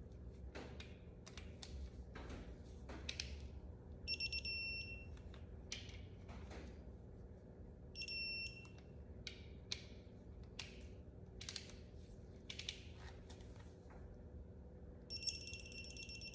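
A wrench clicks and knocks as the camshaft retainer plate bolts are tightened. A high electronic beep sounds three times, about 4, 8 and 15 seconds in: a digital torque wrench signalling that a bolt has reached its 22 foot-pound setting.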